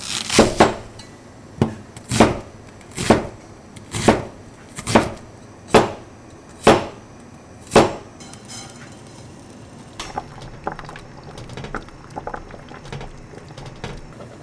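Cleaver chopping an onion on a wooden cutting board: about nine heavy chops roughly a second apart, each a sharp knock of the blade on the wood. In the second half the chops give way to lighter, irregular taps.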